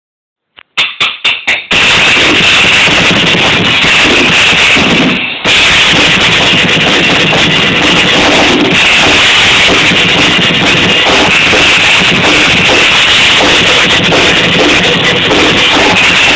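Drum kit played loudly and recorded on a phone, heavily overloaded and distorted. It opens with four or five separate hits just under a second in, then goes into a dense, continuous beat with a brief break about five seconds in.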